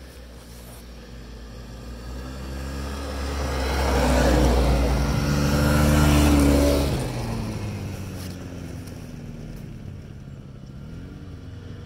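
A snowmobile engine passes by. It grows louder to a peak around four to seven seconds in, then its pitch drops and it fades away.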